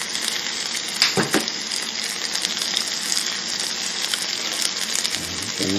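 Angus beef steak sizzling steadily on a hot electric grill plate as it is basted with barbecue sauce.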